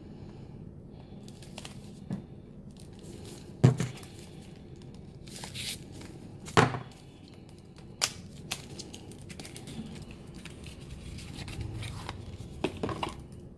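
Paper and cardboard packaging of a makeup palette being torn open and handled: scattered crinkles, tearing and sharp snaps, the loudest about four and seven seconds in.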